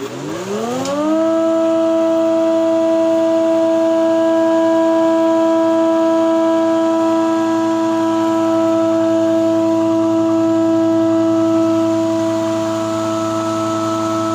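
Homemade wood planer's electric motor and cutterhead starting up: a whine that rises in pitch over about the first second, then holds at a steady pitch as the cutterhead runs at full speed with no wood being fed.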